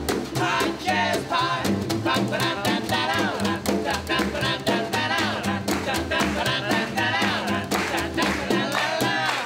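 Small acoustic swing band playing: upright bass, snare drum and ukulele, with men singing over a steady swing beat. The bass drops out near the end as the tune winds up.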